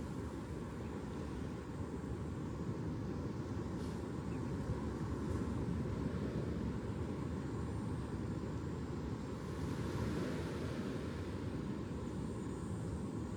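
Ocean surf: a steady low rumble of waves, with one wave washing in more loudly about ten seconds in.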